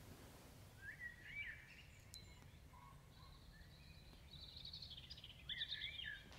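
Faint birdsong over quiet room tone: short up-and-down chirps about a second in and again near the end, with a thin high twittering between them.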